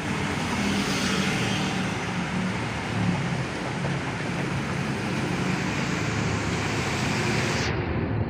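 Diesel engine of a Sinotruk HOWO three-axle flatbed truck running as it drives slowly past, over steady street traffic noise.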